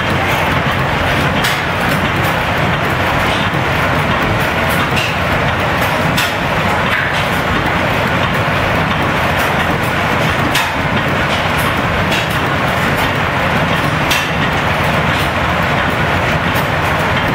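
Antique stationary flywheel gas engines running together: a steady mechanical clatter with sharp pops or clicks at irregular intervals, about one a second.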